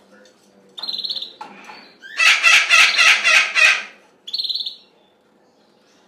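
African grey parrot calling: a short buzzy whistle about a second in, then a loud harsh squawk that pulses about five times a second for a second and a half, then another short buzzy whistle.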